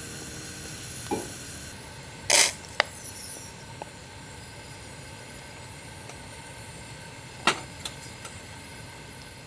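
Seasoning paste squeezed from a plastic tube into a pot of simmering stew: a short squirting splutter about two seconds in, with light clicks and taps of the tube, over the steady hiss of a kerosene pressure burner under the pot.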